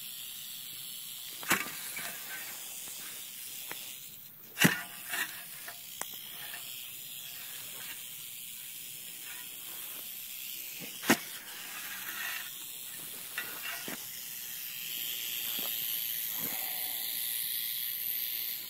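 A rattlesnake rattling its tail in a steady high buzz: the defensive warning rattle of a disturbed snake. The rattle grows louder near the end, and a few sharp knocks come through it.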